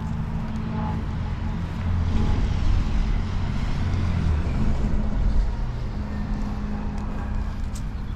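Road traffic: motor vehicles running past with a low engine rumble, growing louder from about two seconds in and easing off after about five.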